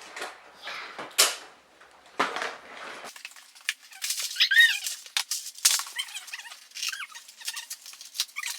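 Plastic packaging crinkling and tearing as packages are opened, then a series of short high squeaks and arching whines in the second half.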